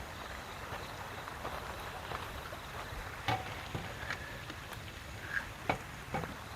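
Outdoor ambience: a steady rushing hiss, with a few sharp knocks and clicks scattered through it and a short high chirp about five seconds in.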